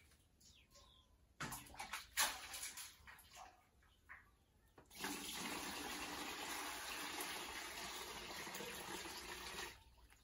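Water poured from a small plastic jug into a plastic bucket: a steady pour starting about five seconds in and lasting about five seconds, then stopping. Before it, irregular splashes and knocks as the jug is drawn up out of the well on a rope.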